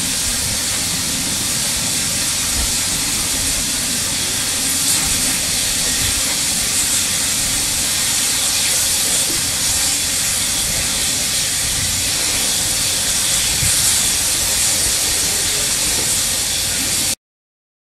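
Ex-British Army 0-6-0 saddle tank steam locomotive venting steam: a loud, steady hiss that cuts off suddenly near the end.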